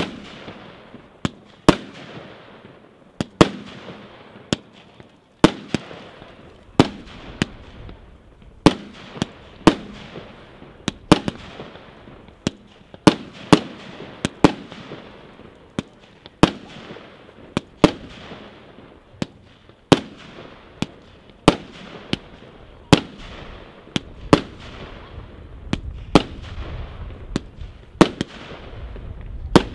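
Royal Fireworks 'Wonderful World' 100-shot fireworks cake firing shot after shot, about one sharp bang a second, each trailing off briefly. A low rumble builds near the end.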